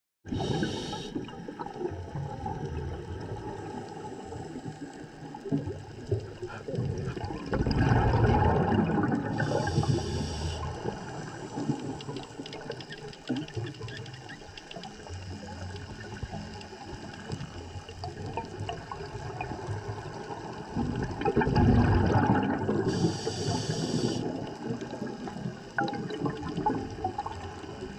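Scuba regulator breathing underwater: short hissing inhalations and two louder gurgling rushes of exhaled bubbles about fourteen seconds apart, over a steady watery wash.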